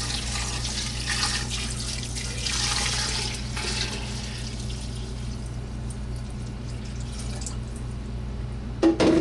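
Water pouring into a pot, strongest for the first few seconds and then tailing off, followed by a sharp clunk near the end.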